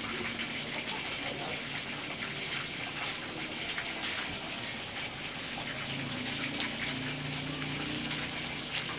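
Whole glazed chicken on a wire grill over hot charcoal, sizzling steadily with many small crackles as juices and sauce drip onto the coals.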